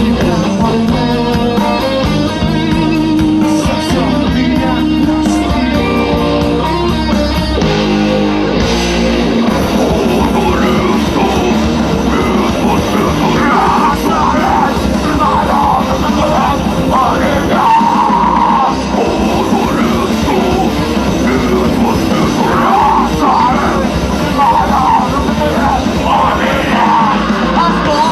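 Rock band playing live: a guitar-led instrumental riff, then a vocalist comes in singing and yelling about nine seconds in.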